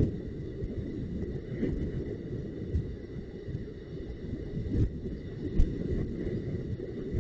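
Wind buffeting an outdoor webcam microphone: an uneven low rumble, with a few short knocks.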